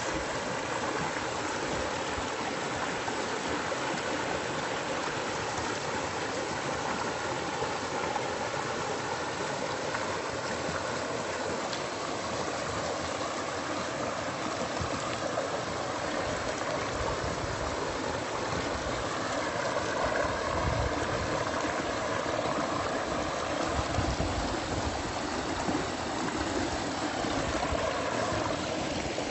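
River water flowing and gurgling steadily.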